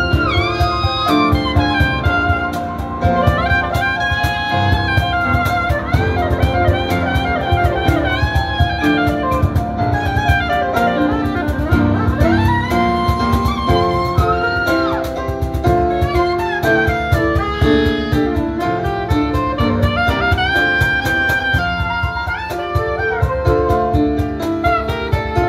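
Live jazz: a soprano saxophone plays a bending, sliding melody over grand piano chords, with a cajon beating steadily underneath.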